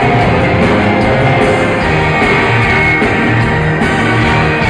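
Live ska band playing loudly, heard from within the crowd at a concert: a dense, steady instrumental passage with no singing.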